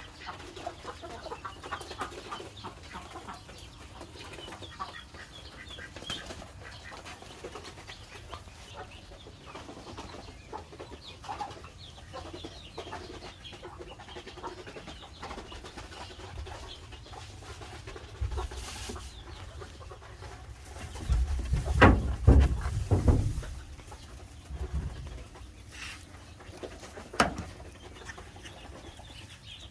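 Chickens clucking in short scattered calls. About two-thirds of the way through, a louder burst of low rumbling thumps runs for a couple of seconds, and a single sharp knock comes near the end.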